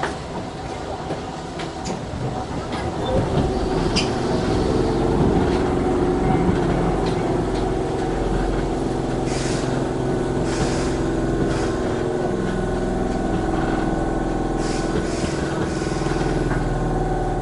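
Electric train running. From about three seconds in, its motors give a steady hum of several held tones over a low rumble.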